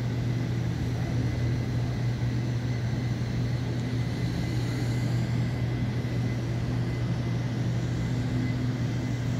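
Steady low hum of air-conditioning units, with a faint constant high whine above it.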